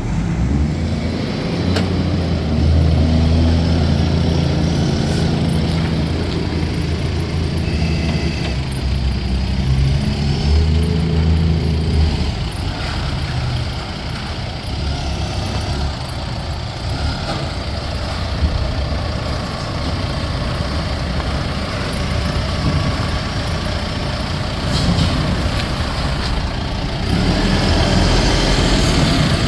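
Heavy diesel engine of a Nippon Sharyo DH408-95M pile driver running. It drones strongly and steadily for the first twelve seconds or so, turns rougher and a little quieter, then gets louder again near the end.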